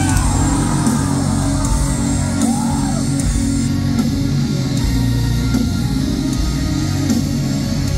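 A progressive metal band playing live: electric guitar, bass, drums and keyboards.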